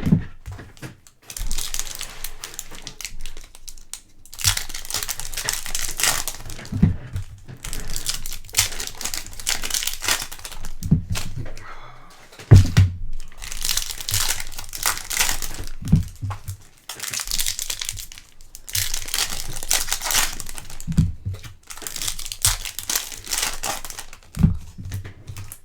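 Foil trading-card pack wrappers crinkling and tearing in intermittent spells as packs are opened and handled, with a few soft knocks in between.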